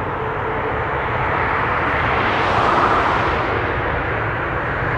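Thai Airways Boeing 787-8 Dreamliner's Rolls-Royce Trent 1000 turbofans at takeoff power on the runway roll: a loud, steady rushing jet noise that swells a little about halfway through.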